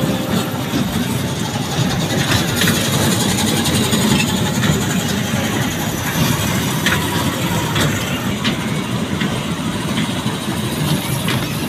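Kiddie train ride running on its low steel track: a steady mechanical rumble with scattered light clicks and knocks.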